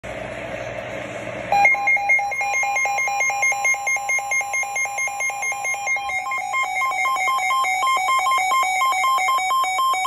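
Weather alert radio's warning alarm sounding for a severe thunderstorm warning: after about a second and a half of radio hiss, fast electronic beeps of about five a second start, and about six seconds in a second, higher beep starts alternating with them.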